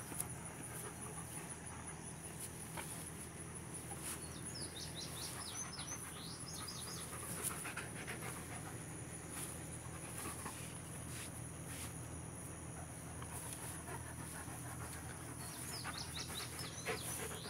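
A dog panting close by. A bird's quick run of high chirps sounds twice, about five seconds in and again near the end.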